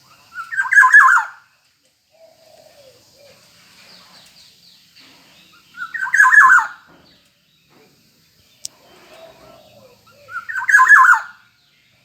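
Black-naped oriole calling: three loud calls of about a second each, roughly five seconds apart, with softer bird chirps in between.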